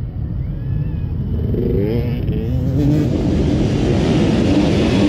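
A pack of dirt bike engines revving hard, the sound growing louder over the first three seconds as the bikes approach, then holding steady.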